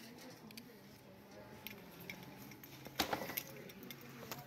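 Quiet shop background with a steady low hum, and a brief clatter of clicks about three seconds in.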